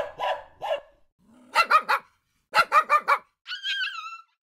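Dog barking in quick groups of two to five sharp barks, with a short high whine that falls in pitch near the end.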